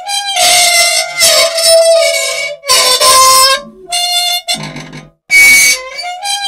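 Loud squealing and scraping from an old machine's dry, unoiled moving parts: wavering, reedy squeals alternate with rasping scrapes in a cycle that repeats about every six seconds.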